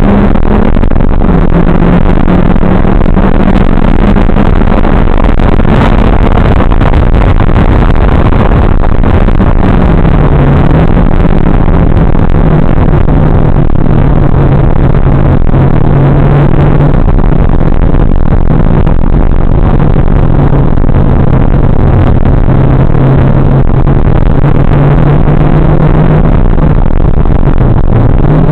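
Mitsubishi Lancer Evolution X GSR's turbocharged 2.0-litre four-cylinder engine running hard on track, over heavy wind and road noise in a loud, poor-quality recording. Its pitch climbs slowly, dips about ten seconds in, then holds steady until a brief dip near the end.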